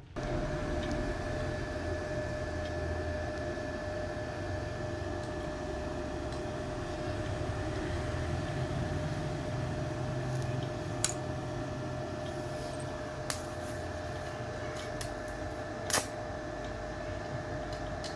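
Inverter welding machine running with its cooling fan on: a steady hum with a constant high whine. A few sharp clicks come late on, the loudest near the end.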